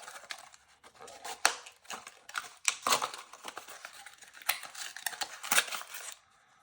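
Toy blind-box packaging being torn open and handled: irregular crinkling and tearing with sharp clicks and crackles, stopping just before the end.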